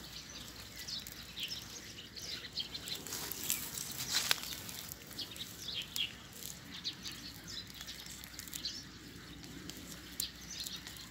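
Small birds chirping now and then over a quiet outdoor background, with a single sharp click about four seconds in.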